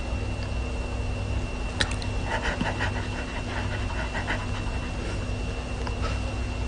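Pomeranian panting in a run of short, quick breaths, over a steady low hum.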